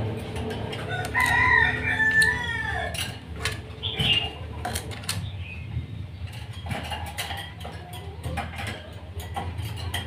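A rooster crowing once, about a second in: a held call that falls away at the end. Scattered sharp clicks and taps run through the rest.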